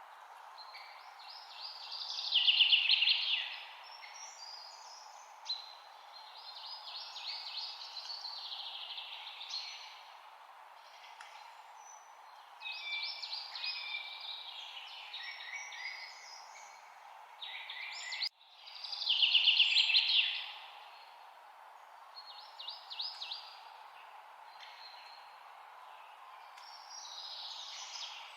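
A bird singing in a series of phrases of quick, chattering high notes, separated by short pauses. The loudest phrases come about three seconds in and again about two-thirds of the way through. A steady background hiss runs underneath.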